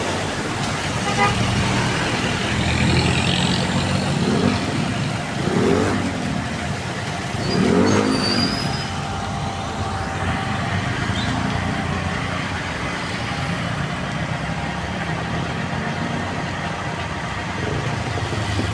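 Engine running steadily, its pitch rising and falling briefly several times in the first half, then settling into an even run with a faint steady tone above it.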